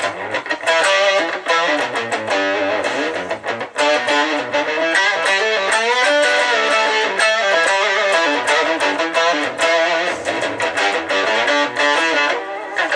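Electric guitar played through a DigiTech Whammy DT pitch-shifter on its octave-and-drive setting: a steady run of picked notes and riffs, shifted an octave and overdriven, with some pitch bends.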